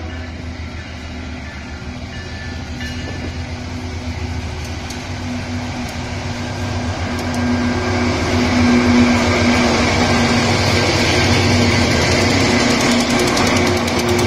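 Diesel-electric freight locomotives running past close by, a steady engine drone joined by wheel and rail noise that grows louder as they pass. A fast, even rattle sets in near the end.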